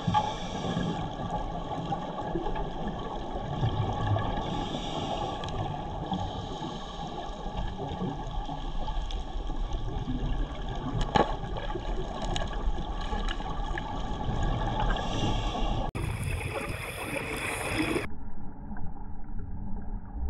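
Underwater ambience picked up through a dive camera's housing: a steady, muffled rushing noise with a faint drone of constant tones under it, and a single sharp click about halfway through. Near the end the sound changes abruptly and becomes duller.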